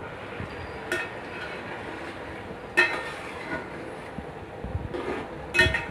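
A steady rushing background noise with a few short metallic clinks and knocks on an aluminium cooking pot as pieces of chicken are added by hand. The clearest clink is about three seconds in and another comes near the end.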